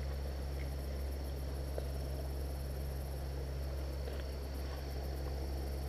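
Crickets chirring steadily in the background, a high, even sound over a low steady hum.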